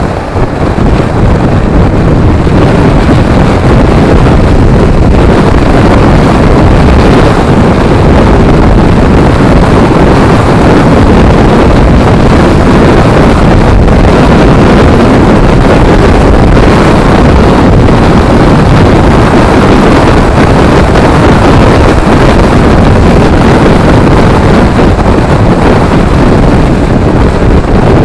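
Loud, steady wind rush on the microphone of a camera on a motorcycle riding at road speed, with the motorcycle's running and road noise underneath.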